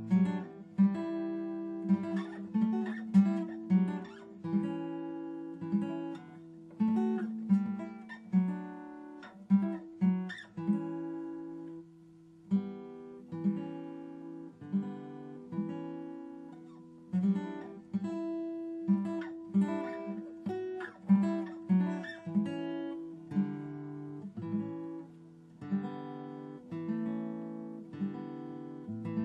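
Background music: an acoustic guitar playing plucked notes and chords, each note ringing and fading, about one or two a second.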